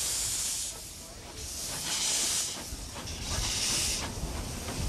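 Queensland Railways A10 class No. 6 steam locomotive letting off steam in regular hissing puffs, about one every second and a half, over a low rumble.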